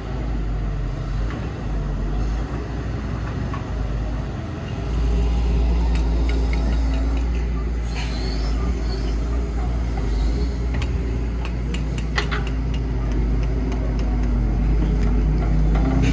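Heavy diesel construction machinery running: a deep steady engine rumble that grows louder about five seconds in, with scattered metallic clicks and knocks.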